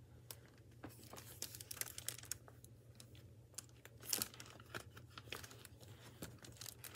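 Faint rustling and crinkling of a hardcover picture book being handled and closed, with scattered small clicks and a louder rustle about four seconds in. A faint steady hum underneath.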